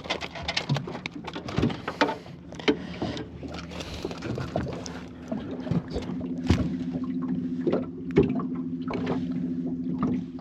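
Knocks and rattles of a freshly landed flathead and the landing net being handled in a small boat. About halfway through, a steady electric hum starts up and runs on under the knocks.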